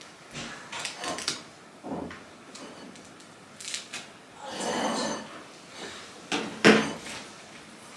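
A series of light knocks and clatters of objects being handled, with a short scraping or rustling stretch about halfway through and a sharper, louder knock near the end.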